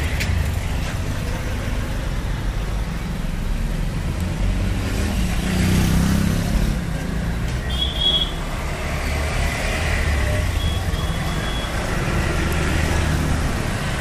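Busy street traffic: motorcycle and auto-rickshaw engines rumbling past, with the rumble swelling as a vehicle passes close about six seconds in. A short high beep sounds about eight seconds in.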